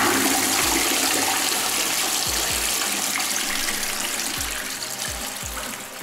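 Toilet flushing into a bowl heaped with candy straws: a loud, even rush of water that starts abruptly and slowly fades as the flush runs on.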